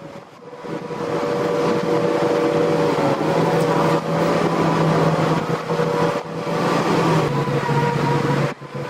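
Engine of a Sennebogen 870 log-handling machine running steadily with a machine hum of several steady tones, growing louder about a second in and dropping off near the end.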